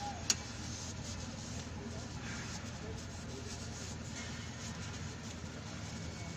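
A hand rubbing and wiping at a car's throttle body during cleaning, with one sharp click about a third of a second in, over a steady low mechanical hum.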